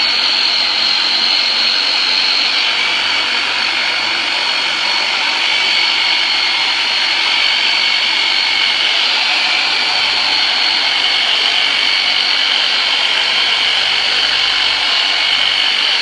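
Handheld electric massage tool, a 'turbonator', running steadily with a high-pitched motor whine as it is worked over the patient's back.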